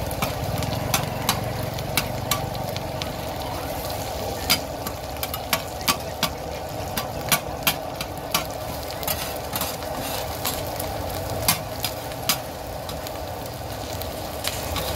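Two metal spatulas clanking and scraping against a giant flat griddle pan as egg is chopped and turned, with sharp irregular clinks about one or two a second over a steady frying sizzle.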